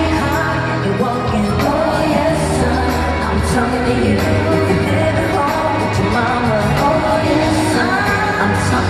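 Live R&B-pop song played loud over an arena sound system: women singing over a bass-heavy beat.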